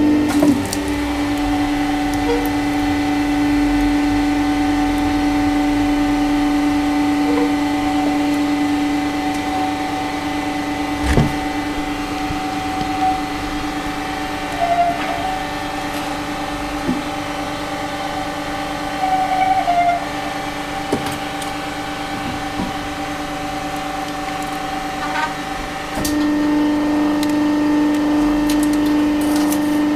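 Hydraulic press's pump motor running with a steady hum, getting louder about 26 seconds in. A single sharp knock about eleven seconds in.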